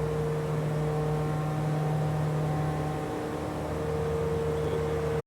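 CNC milling machine running with a steady hum and a held whine from its spindle and drives.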